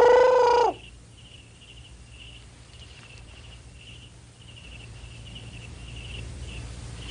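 Crickets chirping in short, regular pulses, about two to three a second, as night ambience. A brief, louder held note sounds at the very start and cuts off within the first second.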